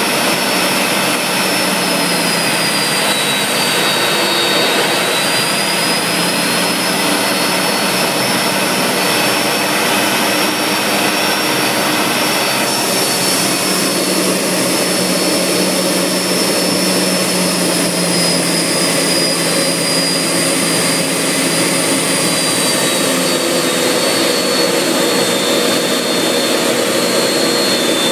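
BAC Strikemaster's single Rolls-Royce Viper turbojet running at taxi power, heard from inside the cockpit: a loud, steady rush with high whines that dip slightly in pitch a few seconds in and ease lower again near the end.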